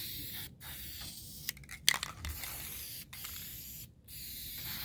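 Aerosol spray-paint can hissing in several long sprays, with short breaks between them, as paint goes onto the steel tray.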